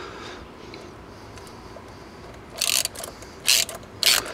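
Ratchet wrench tightening a hose clamp on the intercooler pipe's boot. The clicking comes in three short bursts, one per swing, starting about halfway through.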